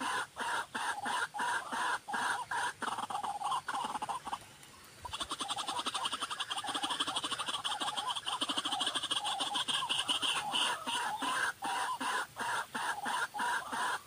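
White-breasted waterhen (ruak-ruak) calling, a steady series of repeated 'ruak' notes at about three to four a second. The notes stop for a moment about four seconds in, then come back as a faster, denser run that slows to the earlier pace about ten seconds in.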